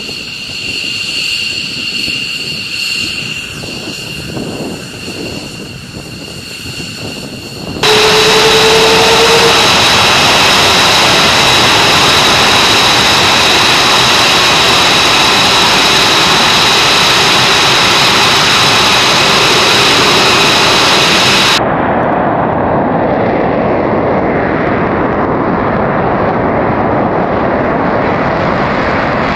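F-22 Raptor jet engines running: a steady jet whine with high, even tones. The sound cuts abruptly to a much louder jet noise about eight seconds in, and again to a duller jet noise a little after twenty seconds.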